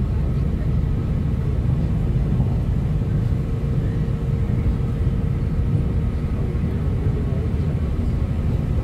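Steady low rumble of an NI Railways diesel multiple unit running at speed, heard from inside the passenger carriage, with a faint steady hum over it partway through.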